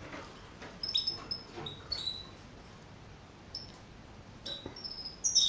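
Red siskins in a cage giving short, high chirps at irregular intervals, several coming close together near the end.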